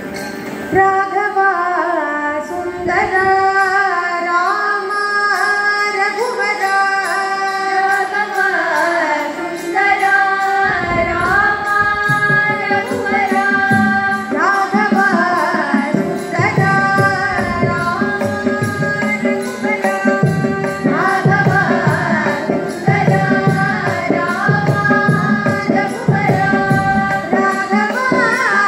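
Female vocals singing a Carnatic devotional song over a steady drone. Hand-drum strokes come in about ten seconds in and keep a regular beat.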